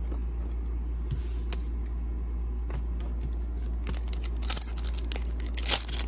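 Foil booster pack wrapper of a Pokémon trading card pack crinkling and tearing as it is ripped open, starting about four seconds in, over a steady low hum. Before that there are only light handling ticks.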